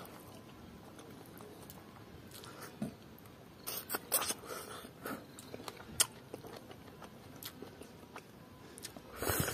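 A person eating pork curry and rice by hand: chewing and wet mouth smacks, with fingers working the rice in a wooden bowl. Scattered short smacks and clicks, bunched about four seconds in and again near the end.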